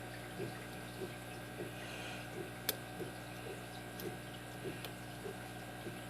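Faint soft clicks from a lock pick tapping the pin tumblers inside a brass padlock cylinder, about one every half-second, with one sharper click about halfway through, over a low steady hum.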